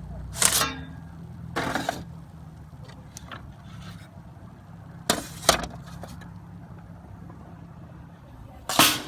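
Steady low wind rumble on the microphone, broken by several short sharp knocks, two of them in quick succession midway.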